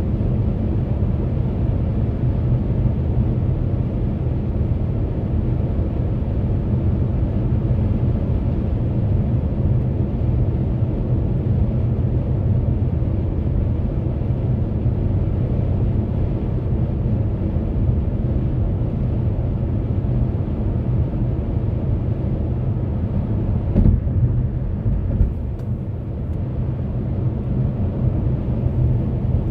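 Steady low rumble of tyre and road noise inside a car's cabin while cruising at highway speed, with one short thump a few seconds before the end.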